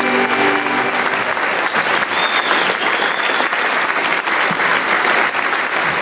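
Audience applauding with loud, dense clapping, as the last held notes of the band's music end about a second in.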